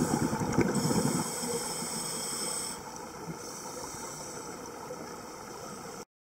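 Underwater sound picked up through a camera housing: scuba divers' exhaled bubbles crackling and rumbling for about the first second, then a steady hiss that drops in level about three seconds in. It cuts off abruptly near the end.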